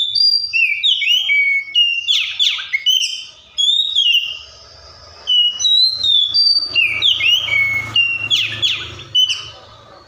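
Oriental magpie-robin (Copsychus saularis) singing loudly: a rapid series of varied whistled notes with rising and falling slurs and some harsher notes, in two runs separated by a pause of about a second near the middle.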